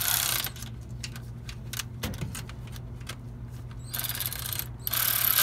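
Hand ratchet wrench clicking in short quick runs as bolts are turned, with scattered clicks of tools on metal, over a steady low hum.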